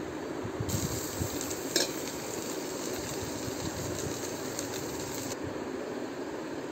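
Shallot paste sizzling in hot oil as it is dropped by hand into an aluminium pot, with one sharp click a little under two seconds in.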